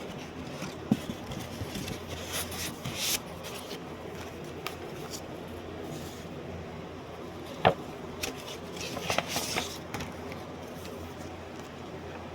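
Handling noises: scattered clicks and rustling over a steady low hum, with sharp knocks about a second in and a little past halfway.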